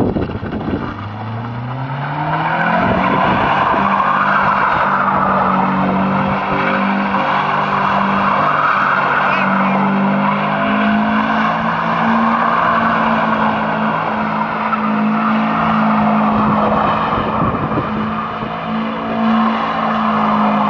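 Toyota Altezza doing donuts: the engine revs up over the first few seconds and is then held high and steady, with the tyres squealing continuously from about two seconds in.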